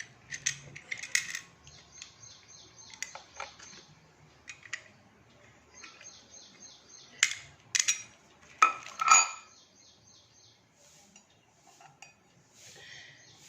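Metal parts of a soldering iron stand clinking and scraping as they are fitted together by hand, in scattered knocks, the loudest clanks coming about seven to nine seconds in.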